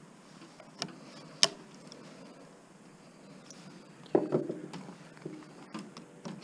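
Two sharp metallic clicks about half a second apart, then a short clatter of knocks about four seconds in: tools and metal parts being handled while a power supply's transformer is worked loose.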